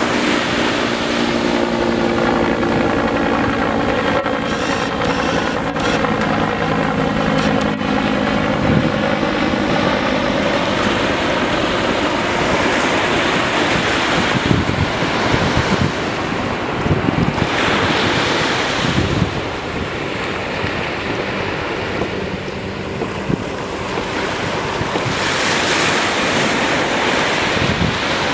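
Ocean surf breaking and washing on a beach, swelling louder several times, with wind buffeting a built-in camera microphone and rumbling over it.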